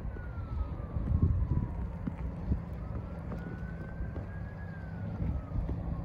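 An emergency vehicle siren wailing slowly, its pitch falling, rising over a couple of seconds and falling again, under louder wind rumble on the microphone.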